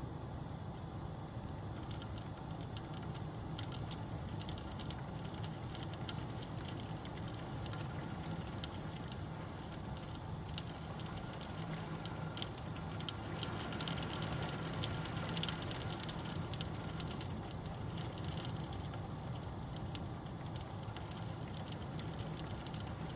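Steady rain, with a dense, irregular pattering of drops that picks up about two seconds in and is thickest around the middle, over a steady low rumble.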